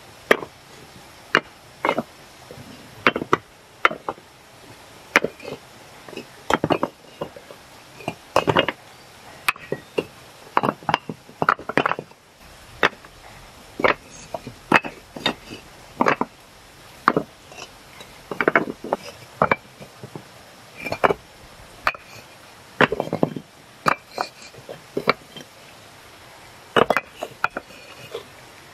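Sharp knocks and taps of hard objects at an uneven pace, one or two a second, some with a brief ring.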